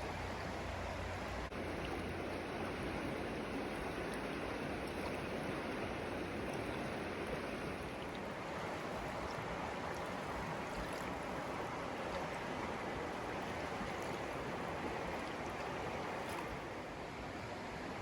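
Mountain river rushing steadily in the late-winter thaw: an even, continuous rush of moving water.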